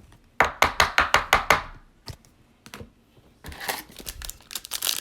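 A quick run of about seven sharp taps or clicks. After a pause, from about three and a half seconds in, the crinkling of a foil trading-card pack wrapper being handled and torn open.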